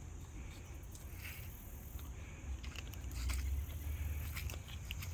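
Low rumble of wind on the microphone, louder past the middle, with scattered light clicks and steps from about halfway through as the person walks.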